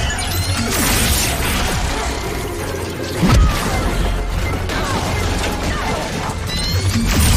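Action-scene soundtrack: dramatic music mixed with crashes and hits, with a heavy low thud about three seconds in.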